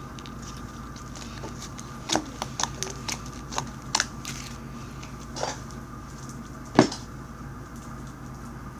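Fluffy slime with styrofoam beads being squished and poked by hand, giving scattered sharp clicks and pops, with one louder pop about seven seconds in.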